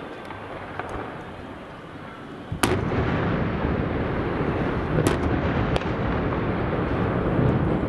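Dynamite charges exploding on a hillside. First come a few scattered sharp cracks. About two and a half seconds in there is a loud blast, and a continuous heavy rumble of blasts and echoes follows, with more sharp cracks over it.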